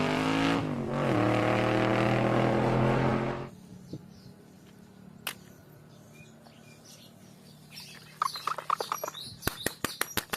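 Race car engine revving, rising steadily in pitch, then cutting off about three and a half seconds in. After a quiet stretch comes a quick series of short chirps and clicks near the end.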